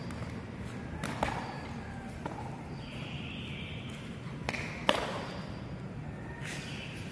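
A handful of sharp slaps and thuds from bare feet and a single practice weapon on foam floor mats during a martial-arts form, the loudest about five seconds in.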